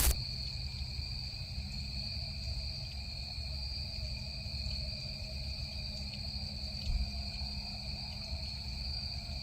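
Night insects trilling steadily at an even high pitch, over a faint low, steady hum.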